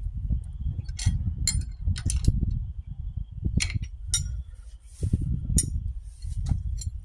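Metal tools and bolts clinking and tapping against steel as hitch hardware is fitted and tightened, about eight separate sharp clinks at uneven intervals over a steady low rumble.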